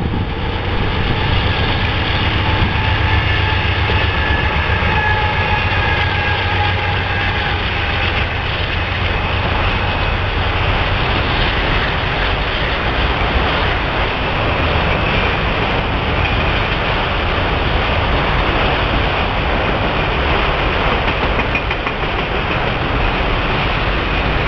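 Norfolk Southern GE diesel locomotives passing with a steady low engine hum for the first several seconds, followed by the continuous rolling rumble of autorack cars' wheels on the rails.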